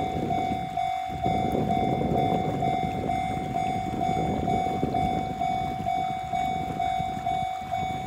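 Japanese railway level-crossing alarm ringing its repeating electronic 'kan-kan' tone, about two strokes a second, warning that a train is coming. A low rumbling noise sits underneath.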